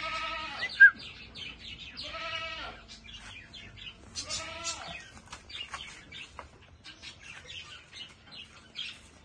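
A goat bleating three times, each call short and wavering, about two seconds apart. A sharp click near the end of the first bleat is the loudest sound, and light scattered clicks and taps follow in the second half.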